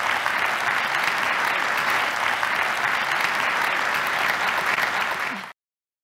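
Large audience applauding steadily, many hands clapping at once; the applause cuts off suddenly about five and a half seconds in.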